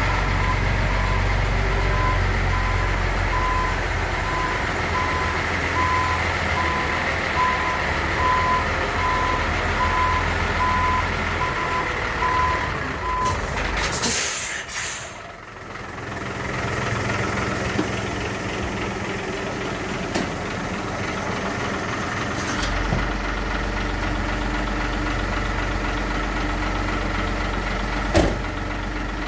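Concrete mixer truck backing up: its diesel engine runs while the reversing alarm beeps evenly, about once a second, and stops after about thirteen seconds. Then a loud air-brake hiss, and the engine settles to a steady run.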